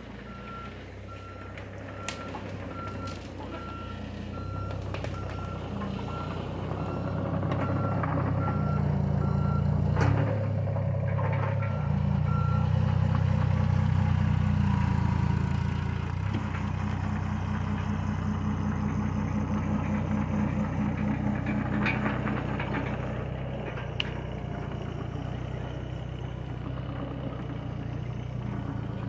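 John Deere 26G mini excavator's diesel engine running and working harder under hydraulic load as the arm drags a junked car body out, with a few sharp metal knocks from the wreck. A steady series of short warning beeps at one pitch sounds for the first twelve seconds or so, then stops.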